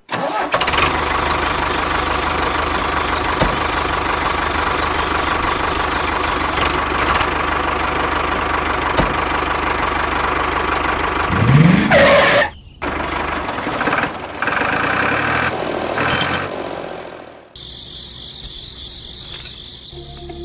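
Small tractor engine running steadily for about twelve seconds, then a rising whine and a sudden cut-off. Shorter stretches of engine sound follow, then a quieter sound in the last few seconds.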